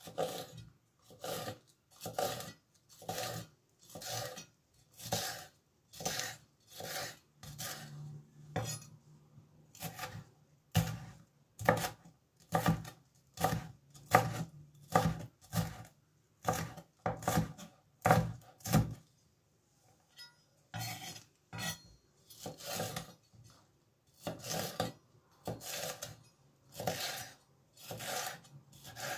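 Chef's knife chopping red bell pepper on a bamboo cutting board, the blade knocking on the board in steady strokes about two a second, with a short pause about two-thirds of the way through.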